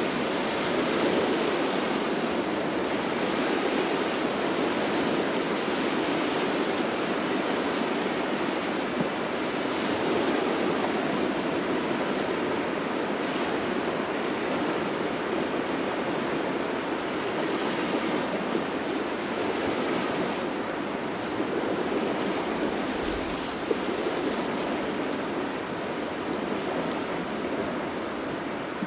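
Small waves washing on the shore in a cold, gusty wind, a steady rushing hiss that swells and eases every few seconds.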